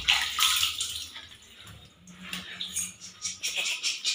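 Water splashing and trickling as a toddler is bathed from a bucket, fading over the first second. Toward the end, a bar of soap is rubbed over wet skin in quick repeated strokes.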